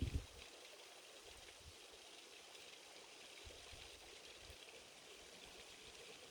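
Near silence: a faint, steady outdoor hiss, with a brief low thump right at the start.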